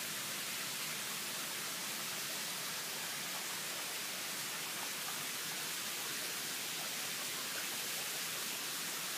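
A steady, even hiss with nothing else standing out in it.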